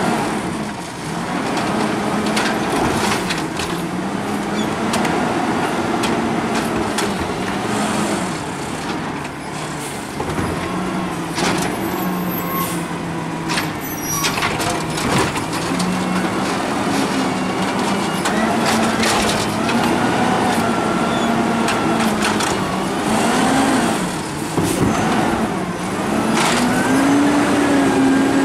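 Natural-gas automated side-loader garbage truck servicing carts: the engine runs with its pitch rising and falling as the hydraulic arm works, with repeated clanks and bangs of carts and trash. Near the end the engine revs up as the truck pulls away.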